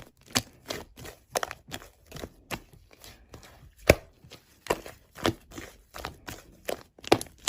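Slime being played with by hand: a run of irregular sharp clicks and pops, a few a second, with one louder pop about four seconds in.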